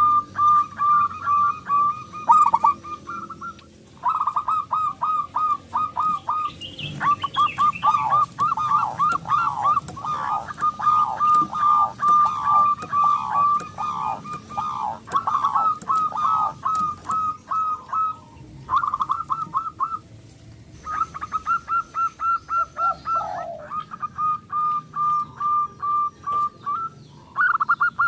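Zebra doves (perkutut) cooing: bouts of fast, evenly repeated short notes at one pitch, each bout lasting a few seconds with brief pauses between, the calls thickening in the middle as more than one run overlaps.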